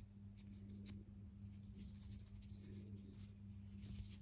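Near silence: a faint steady hum under soft rustles and a few light ticks of a metal crochet hook being worked through thick 6 mm rope cord.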